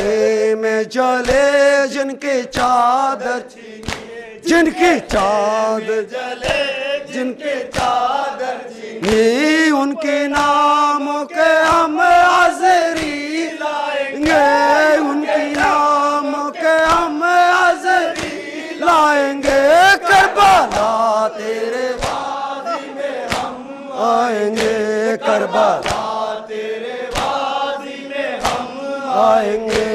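A group of men chanting a Muharram noha (Shia mourning lament), led by a male voice over a microphone. It is punctuated by a steady rhythm of sharp slaps from men beating their chests in matam.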